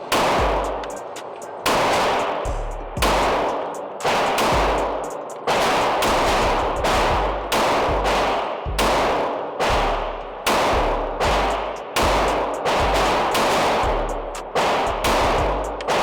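.40 S&W Glock 23 pistol fired in a steady string, about one shot a second, each shot trailing off in a long echo. A backing track with a deep bass line plays under the shots.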